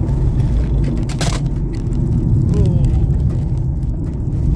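Petrol car being driven, heard from inside the cabin: a steady low rumble of engine and tyre noise, with one short sharp knock a little over a second in.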